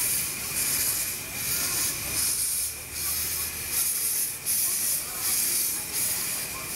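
Miniature live-steam locomotives standing with steam up, hissing steadily with a pulsing beat about every two-thirds of a second and a thin, steady high tone running under it.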